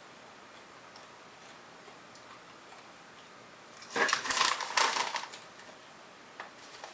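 A brief, dense crackling about four seconds in, lasting just over a second: the foil bag of kettle-style barbecue chips being handled and crinkled.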